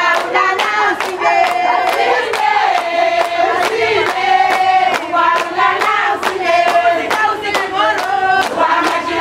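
A group of voices singing together over steady hand-clapping, about three claps a second.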